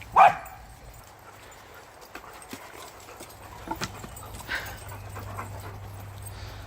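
A dog barks once, loud and short, just after the start, then a few fainter barks or yelps follow about four seconds in as dogs play together.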